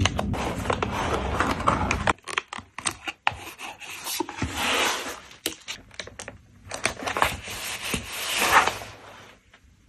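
Hands packing photocards: plastic packaging crinkling and scraping, with tape or film pulled and torn, in three rustling stretches that die away near the end.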